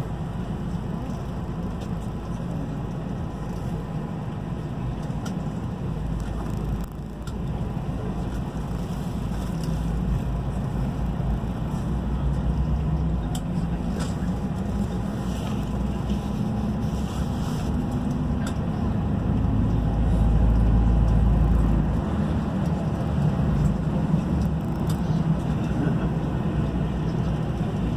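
Airport ramp bus driving across the apron, heard from inside the cabin: a steady engine and road rumble, which grows louder for a couple of seconds about two-thirds of the way through.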